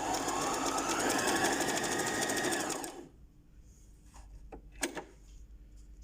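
Brother portable free-arm sewing machine running at speed, stitching the decorative zigzag pattern number 5 with a rapid, even needle rhythm for about three seconds, then stopping. A couple of light clicks follow.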